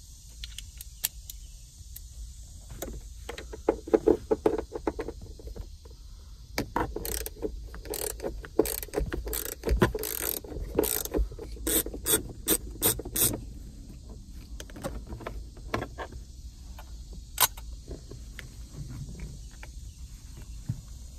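A T45 Torx seatbelt anchor bolt being turned out of the rear pillar with a hand tool. It makes a run of rapid metallic clicks and clinks through the middle, then a few scattered clicks.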